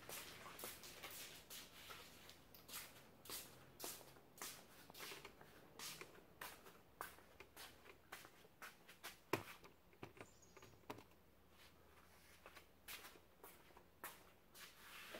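Faint, irregular rustles and light taps of a camera being handled and repositioned, with one sharper tap about nine seconds in, over otherwise near-silent room tone.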